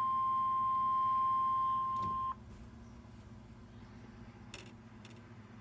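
Weather-radio warning alarm tone: a single steady tone near 1 kHz, the signal that comes with a weather alert broadcast. It cuts off suddenly a little over two seconds in, leaving a faint hiss from the radio channel.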